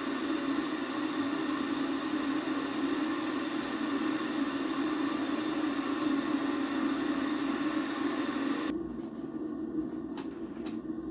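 A steady mechanical hum with hiss, typical of a fan or appliance running in a small room. About three-quarters of the way through, the hiss drops away suddenly, leaving the lower hum, and two faint short ticks follow.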